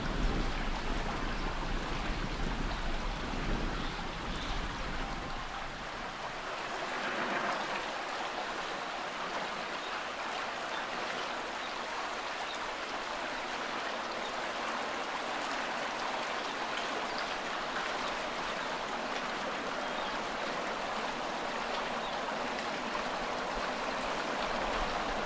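Steady wind noise, with wind rumbling on the microphone for the first six seconds or so before easing.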